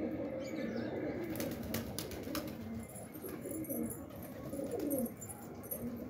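A flock of domestic pigeons cooing together in an overlapping low, warbling chorus. A few sharp clicks come about a second and a half to two and a half seconds in.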